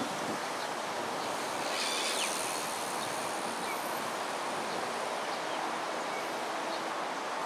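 Steady outdoor background hiss with a few faint, short high chirps.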